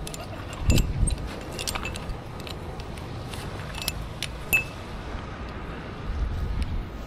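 Metal rope-access gear (carabiners and rigging hardware) clinking and jingling in scattered light clinks as it is handled. Low rumbling on the microphone about a second in and again near the end.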